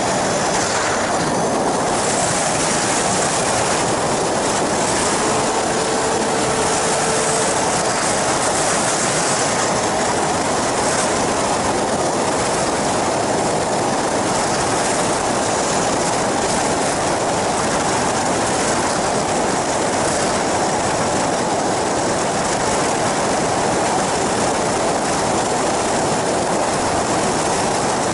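Ultralight flying boat in flight: its engine and propeller drone blend with wind rushing over the aircraft-mounted camera into one steady, loud, even rush.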